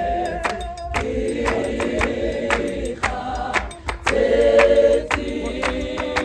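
A clap-and-tap choir singing sustained chords in harmony, over sharp rhythmic hand claps at about two a second. A loud held chord comes about four seconds in.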